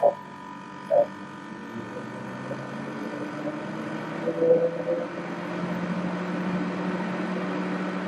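Small Gre swimming-pool heat pump starting up: its compressor and fan hum steadily and gradually grow louder. Two short thumps come about a second apart at the start.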